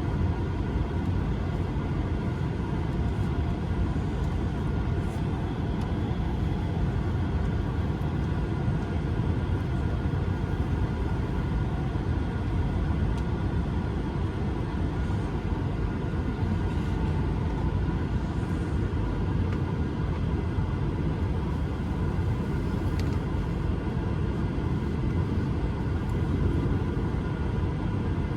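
Cabin noise of an Airbus A220-300 taxiing: a steady low rumble with the even hum and faint whine of its Pratt & Whitney PW1500G engines at idle, heard from inside the cabin.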